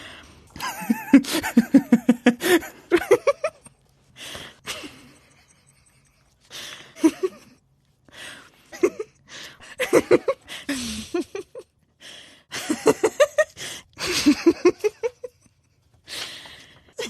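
An adult woman giggling eagerly in repeated bouts of quick, high-pitched giggles, with short breathy pauses and gasps between the bouts.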